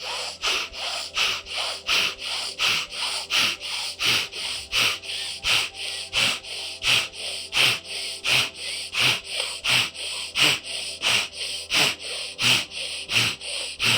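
Rapid, forceful breathing in and out through one nostril, the other held shut by the thumb: bhastrika (bellows breath) pranayama. Sharp, even strokes of about three a second.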